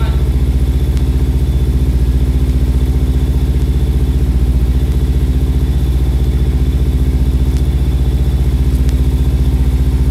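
Kawasaki Ninja 300's parallel-twin engine idling steadily, warming up.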